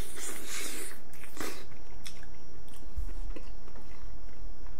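A person biting into and chewing a piece of raw salmon, with close, wet mouth sounds. A bite and chewing noise come in the first second and a half, then softer chewing and a few small clicks.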